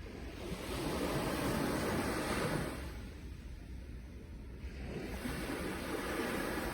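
Sea waves washing in and drawing back in slow swells: one wave rushes in and fades in the first half, and the next builds from about five seconds in.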